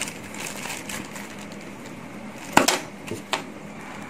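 Clear plastic packaging being unwrapped by hand: soft rustling and crinkling, with a few sharp crackles about two and a half to three and a half seconds in, the first the loudest.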